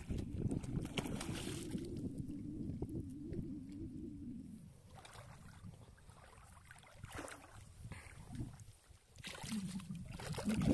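A freshly landed walleye flopping in shallow, grassy water at the lake's edge, splashing in a few short bursts. A low wavering drone runs under the first four seconds or so and comes back near the end.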